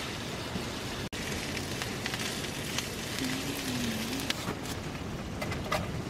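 Dumplings sizzling as they fry in oil in a shallow pan on a camping gas burner, a steady crackling hiss with a few light clicks. The sound drops out very briefly about a second in.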